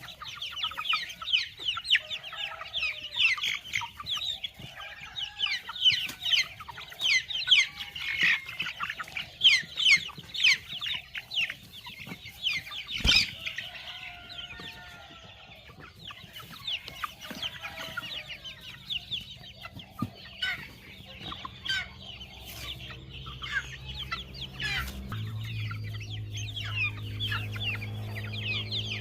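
A flock of Rhode Island Red and Barred Plymouth Rock laying hens clucking, with many quick high chirps over lower calls. There is one sharp knock about halfway through, and a low steady machine hum comes in near the end and grows louder.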